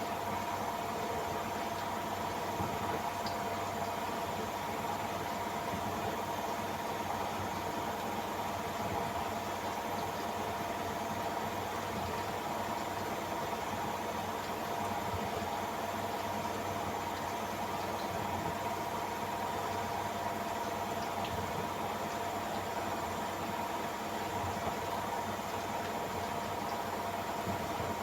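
Samsung AddWash WW70K5410WW washing machine in its spin cycle, the drum turning at a steady speed: a steady whine over an even rushing hum.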